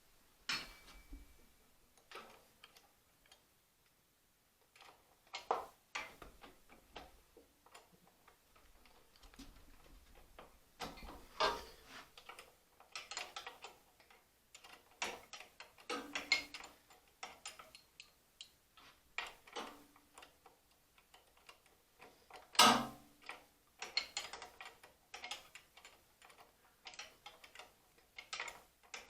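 Hand tools working on a motorcycle carburetor: irregular metallic clicks, ticks and light knocks as parts and fasteners are handled, with one sharper knock a little over two-thirds of the way through.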